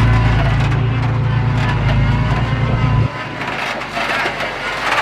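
Heavy diesel engine of earth-moving machinery running steadily, a deep drone that cuts off abruptly about three seconds in, leaving a noisier patch of knocks and clatter.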